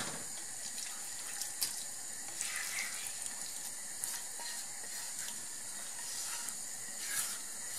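A pot of beans simmering with a steady soft hiss while a sofrito is scraped into it from a pan. A couple of light clicks come from the utensil against the pan.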